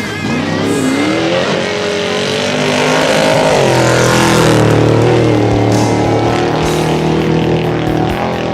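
Off-road race truck's engine running hard, its pitch rising and falling with the throttle, over background music.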